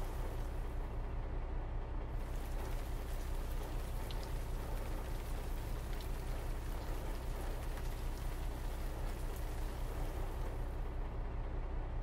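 Steady rain falling, an even hiss of drops with no breaks.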